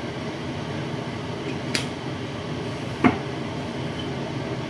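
Steady fan-like hum, with a short light click a little under two seconds in and a sharper knock about three seconds in.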